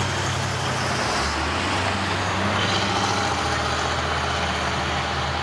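Mid-1960s Plymouth hardtop's engine running as the car cruises slowly past, a low steady note that drops a little about a second in and then holds.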